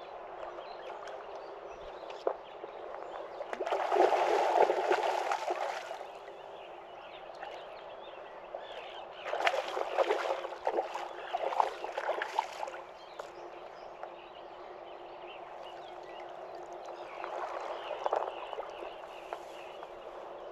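River water running, with three louder spells of splashing and sloshing.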